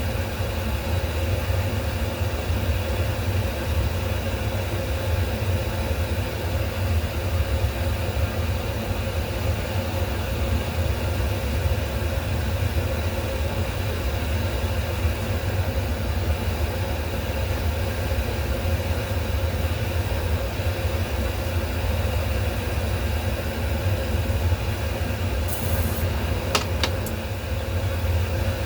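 Steady low machine hum with a faint constant tone over it, and a couple of light clicks near the end.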